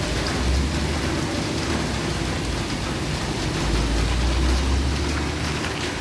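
Heavy rain falling steadily, with traffic on a busy wet road; a low rumble swells twice, longest in the second half.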